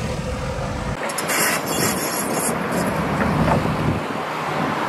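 Diesel earth-moving machines running while digging soil: a backhoe loader, then a crawler excavator, giving a steady mechanical drone. A brighter hissing, scraping noise rides over it for about a second and a half shortly after the start.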